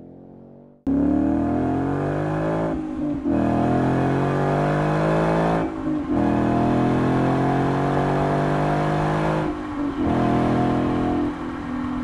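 A 2015–2017 Ford Mustang GT's 5.0 Coyote V8 through a Borla Touring cat-back exhaust, accelerating hard. The engine note cuts in suddenly about a second in and climbs in pitch. Every few seconds it breaks and drops as the car shifts up, three or four times.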